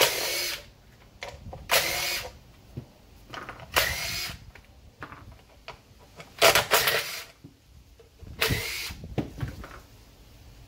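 Cordless power driver spinning out the housing bolts of a turbocharger in five short bursts, each with a rising whine as the motor spins up, with small clicks and clinks of metal between them.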